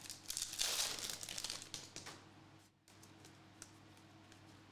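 Foil wrapper of a basketball trading card pack crinkling while being handled and opened, for about two seconds, then stopping.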